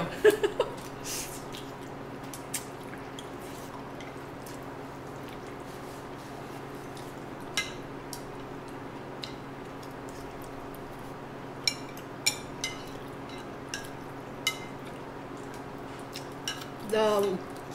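Chopsticks clicking against plates of spaghetti, with about ten scattered sharp clicks as two people eat, over a steady hum.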